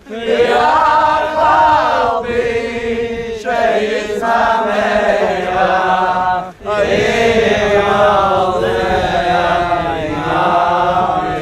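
Chanted singing: a voice holds a slow, wavering melody, breaking off briefly about two-thirds of the way through.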